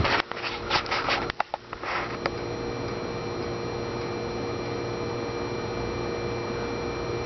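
Vintage Emerson Electric Type 77648-SO oscillating desk fan running, a steady motor hum with the whir of its blades. A cluster of sharp clicks and knocks comes in the first two seconds.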